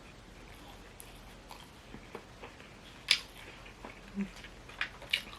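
Close-miked eating: quiet chewing and mouth clicks, with a few sharper clicks about three seconds in and again near the end.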